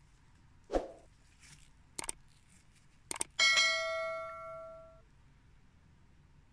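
YouTube subscribe-reminder animation sound effect: two quick clicks a little after three seconds in, then a bell chime with several tones that rings for about a second and a half and fades. Before it, a soft knock and a couple of light clicks.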